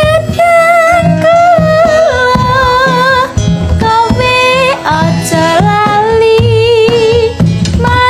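Campursari ensemble playing live: a high melody line with vibrato and slides, over regular low drum and bass strokes.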